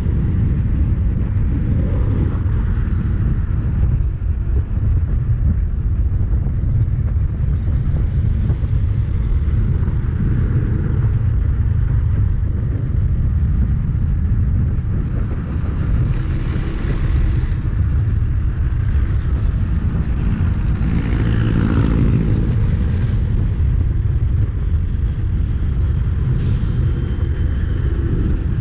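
Steady wind noise on the microphone of a bicycle rolling fast downhill along a highway, with motor traffic passing. In the second half a couple of vehicles pass close by, one with a falling pitch.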